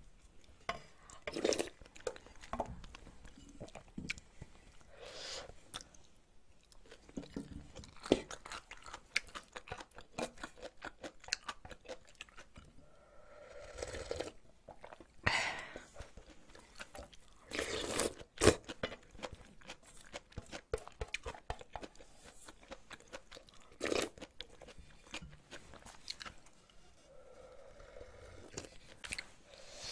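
Close-miked eating sounds: wet chewing and mouth clicks, and ramen broth slurped and swallowed straight from an aluminium ramen pot, in several louder swells from about halfway on.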